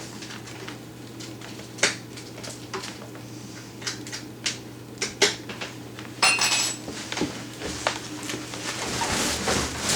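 Dishwasher's metal body being worked out of its cabinet opening: scattered metallic clanks and knocks, a brief ringing metal scrape about six seconds in, and a sliding scrape building near the end.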